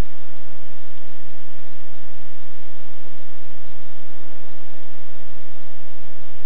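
Steady electrical hum and hiss with two faint fixed tones, unchanging.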